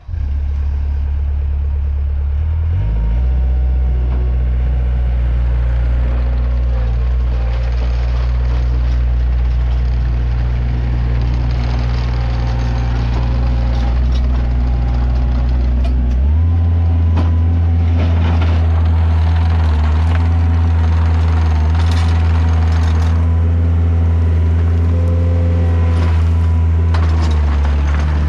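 Takeuchi TL130 skid steer's diesel engine running steadily, its note shifting about three seconds in and again around sixteen seconds as the engine speed changes, with some clanking and clatter from the machine in the second half.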